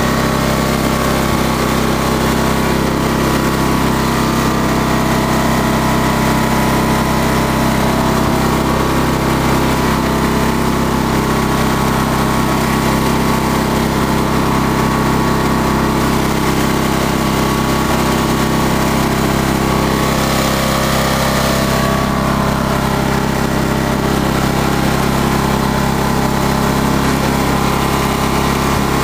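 An MTD ride-on mower's small petrol engine runs steadily while the mower drives along. Its drive is coupled straight to the engine because the clutch is not connected.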